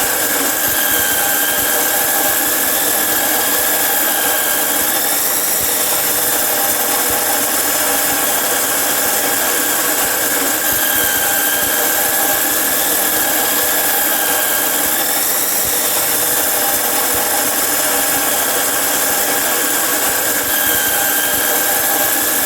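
Angle grinder cutting iron: a steady high whine over a grinding hiss, its pitch dipping and swelling slightly every few seconds as the disc bites.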